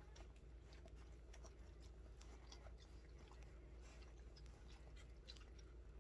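Near silence: a steady low hum with faint scattered clicks and soft rustling from a newborn puppy being handled.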